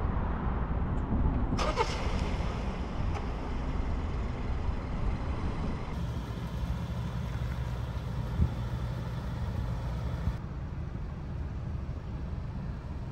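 A 2022 Hyundai Tucson SEL AWD on the move, with a steady low rumble of engine and road noise. There is a short falling squeak about two seconds in and a single click around eight seconds in.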